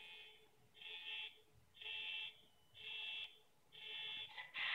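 Model-railroad grade-crossing bell from an electronic sound module, sounding in short ringing pulses about once a second. Near the end a louder, even noise sets in.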